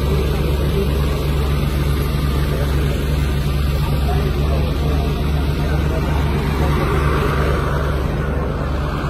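A vehicle engine idling with a steady low hum, with faint voices of a crowd beneath it.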